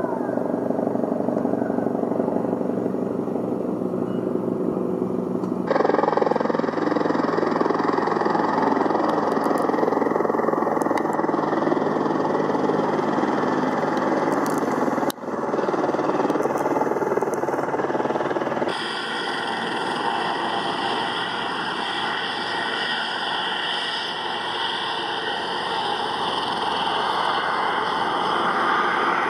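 Piper PA-46-310P Malibu's turbocharged six-cylinder piston engine and propeller running steadily as the light aircraft rolls on the ground. The sound changes abruptly about six, fifteen and nineteen seconds in, where the footage is cut.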